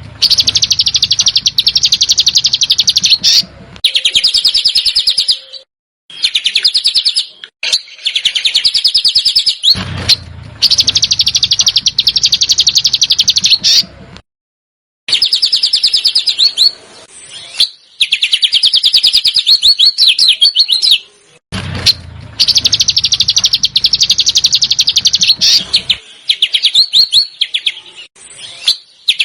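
Songbird giving a 'besetan' song: long phrases of very rapid, rasping repeated high notes, each a few seconds long and broken by short gaps, several cutting off abruptly.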